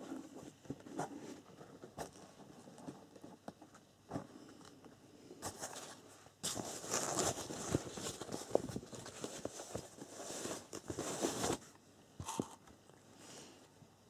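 Foam packing sleeve and plastic wrapping rustling and crinkling as a battery charger is unwrapped by hand, with scattered light knocks and clicks. The rustling is densest from about five and a half to eleven and a half seconds in.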